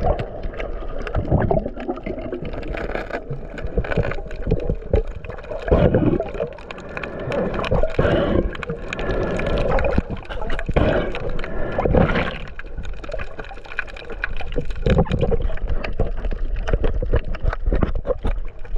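Water gurgling and bubbling in uneven surges every second or two.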